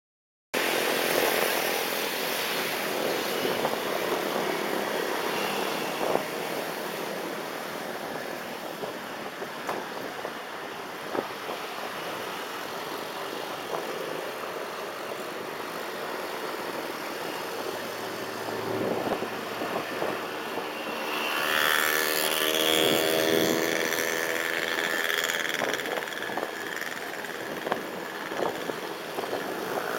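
Steady road and traffic noise picked up by a camera riding on the roof of a moving car, among cars and motorcycles. A louder vehicle engine passes close by for a few seconds around 21 to 25 seconds in.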